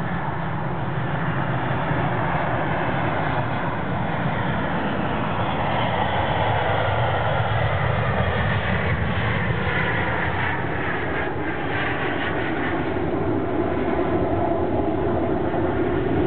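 Boeing 737-800 jet landing: the steady noise of its CFM56-7B turbofan engines as it comes in on final approach, touches down about halfway through and rolls out along the runway. The sound slowly grows louder.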